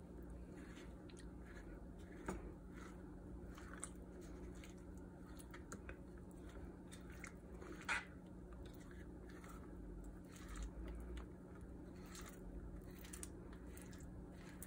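Kitchen knife scraping soft roasted eggplant pulp off the leathery skin on a plastic cutting board: faint, repeated short scrapes and squishes, with a sharper knock about eight seconds in.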